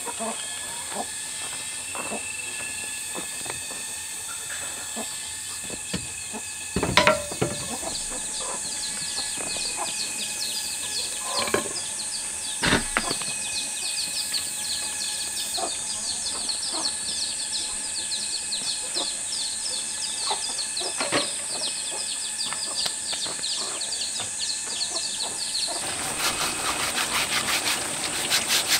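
Countryside ambience: a steady high-pitched drone with rapid high chirping and a few sharp knocks. Near the end, a plastic brush starts scrubbing a rubber sandal in quick strokes.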